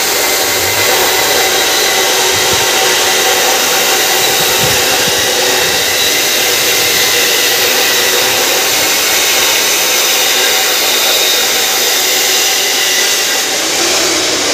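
A machine running steadily: a loud, even rushing noise with several constant whining tones layered in it.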